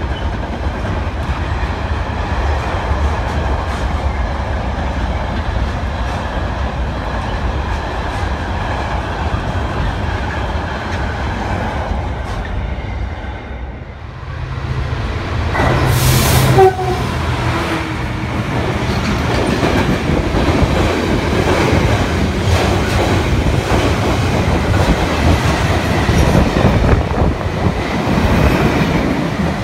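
A freight train's wagons rumbling steadily past. About halfway through, a second freight train comes through close by: a sudden loud onset with a brief horn blast, then its wagons clattering and rattling past.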